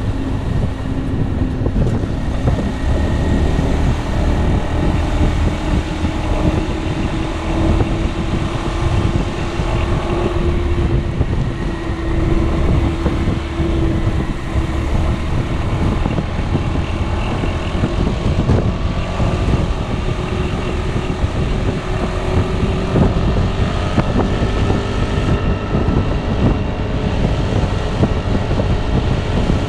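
Piaggio Beverly 300 scooter's single-cylinder engine running under way, its note slowly climbing as speed builds, easing off about halfway and then climbing again. Heavy wind rumble on the microphone lies under it.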